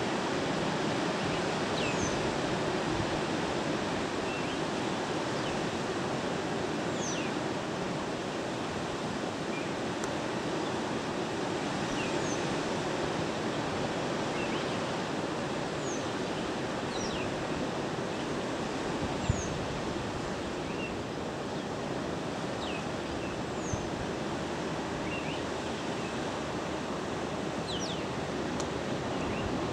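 Steady rush of surf breaking on a rocky shore, with short high bird chirps every second or two. A single sharp click sounds about two-thirds of the way through.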